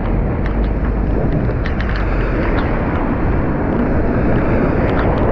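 Heavy rain falling on a moving car, over steady tyre and road noise on the wet street, with scattered sharp taps of drops.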